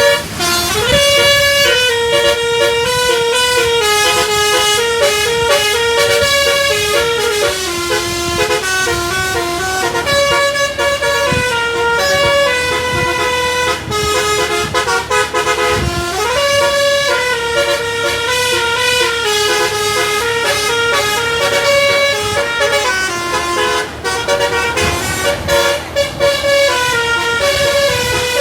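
A bus's telolet basuri musical air horn, with several trumpets, playing a fast melody. The notes change several times a second, and it slides upward now and then.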